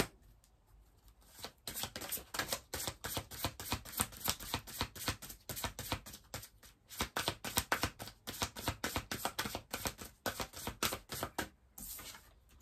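A deck of oracle cards being shuffled by hand: a fast, even run of card flicks starting about a second and a half in and going on for about ten seconds, with a couple of brief pauses.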